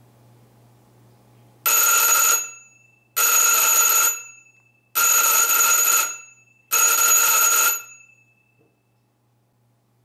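Antique wall telephone's electric bell ringer, wired as a doorbell, ringing in four short rings of about a second each. Each ring starts sharply and the bells ring on briefly after it stops. Each ring is the doorbell button wires touched together at the door to test the circuit.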